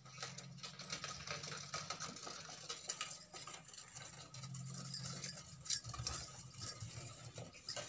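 Blue blouse cloth being unfolded, spread out and smoothed flat by hand, rustling with many small irregular crackles.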